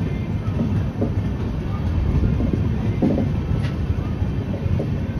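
Express train's coaches running along the track, heard from a moving coach: a steady rumble of wheels on rail, with a few light knocks.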